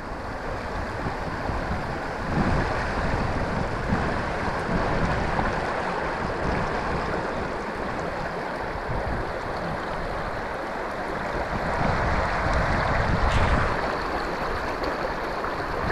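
Sea water washing at the shore in a steady rush, with wind buffeting the microphone.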